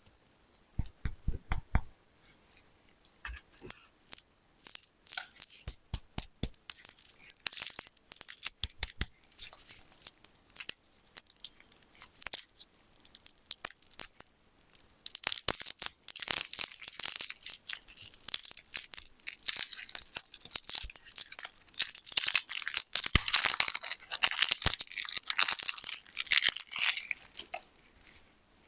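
Plastic candy wrappers being crinkled and torn open close to the microphone: a run of sharp crackles and snaps that grows into a dense, continuous crinkling about halfway through.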